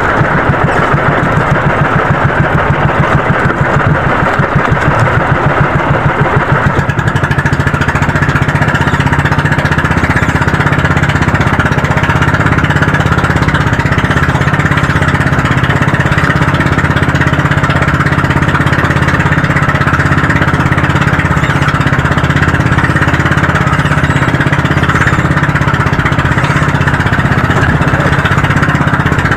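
Small boat engine of a motorized outrigger running steadily under way. The note evens out about seven seconds in.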